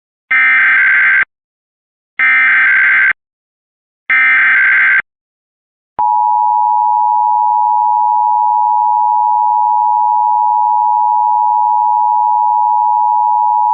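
Emergency Alert System test signal: three roughly one-second bursts of SAME digital header data tones, about a second apart, then, about six seconds in, the steady two-tone EAS attention signal (853 and 960 Hz played together).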